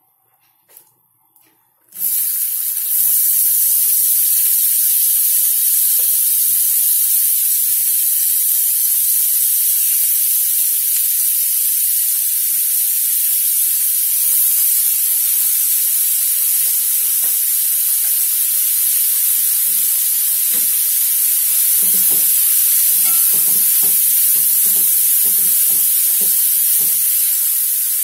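Chopped onions sizzling in hot oil in a kadai: a loud, steady frying hiss that starts suddenly about two seconds in. In the last several seconds a spoon stirring in the pan adds a run of quick low knocks.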